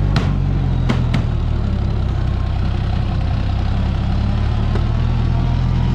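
Oliver 880 tractor's gasoline engine idling steadily, with a few sharp clicks about a second in.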